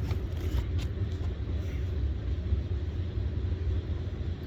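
Strong wind buffeting the microphone: a steady, gusting low rumble, with a few faint clicks in the first second.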